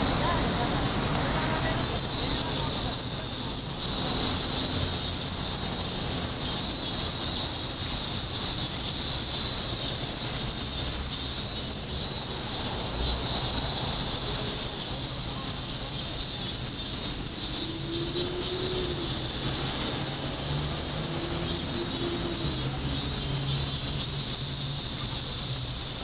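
Dense summer chorus of cicadas in the trees: a continuous, high-pitched shrill hiss that holds steady throughout, over a faint low city rumble.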